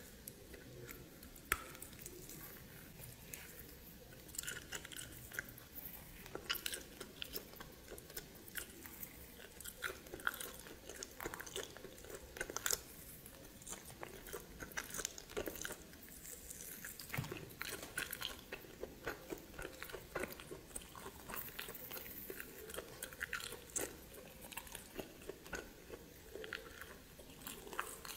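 A person eating steamed snake close to the microphone, biting and chewing with many irregular crunches.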